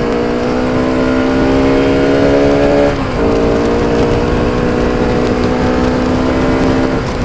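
Bajaj Pulsar RS200 single-cylinder engine, still on its stock exhaust, pulling under way with its note slowly rising, a quick gear change about three seconds in, then a steady note again until it drops off near the end. Wind rumble on the microphone sits underneath.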